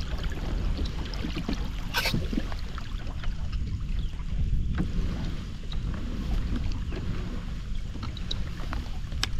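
Wind rumbling on the microphone and water lapping at a kayak's side, with small splashes and knocks from a hand holding a striped bass in the water to revive it; one sharper knock about two seconds in and another near the end.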